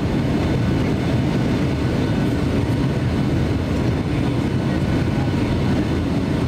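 Steady cabin noise inside a Boeing 757-200 descending on approach: its Rolls-Royce RB211 engines and the rush of air over the airframe, heard as an even, deep drone from a window seat over the wing.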